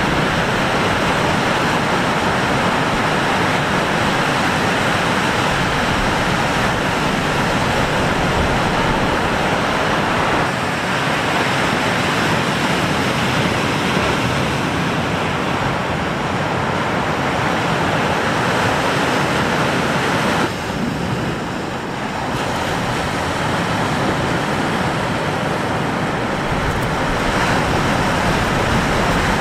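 Lake Superior waves breaking, with strong wind blowing across the microphone: a steady, loud rush of noise. It eases briefly about two-thirds of the way through.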